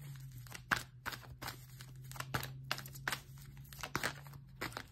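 A deck of oracle cards being shuffled by hand: a run of crisp, irregular card snaps and rustles, about two or three a second, over a steady low hum.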